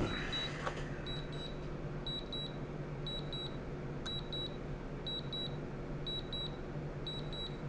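Drone remote controller beeping in pairs of short, high-pitched beeps about once a second. This is the alert as the drone heads back to land after its mission ends.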